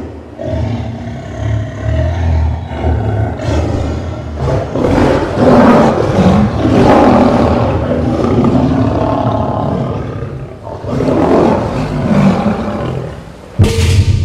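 Recorded lion roars and deep growls, rising and falling over several seconds over a low rumble. A sudden loud crash comes near the end.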